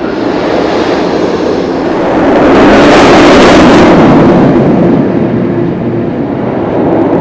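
Roller coaster train rumbling past on its steel track, swelling to a loud peak about three seconds in and then easing off.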